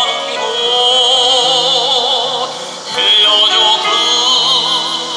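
Tenor singing a Korean art song in classical style with wide vibrato, accompanied by grand piano. He breaks briefly for breath between phrases about three seconds in, then sings on.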